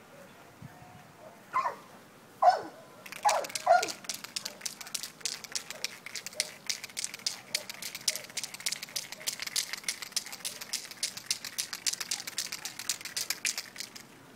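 Four short calls falling in pitch, from an animal, then a fast, irregular rattle of sharp clicks that runs for about ten seconds and stops suddenly.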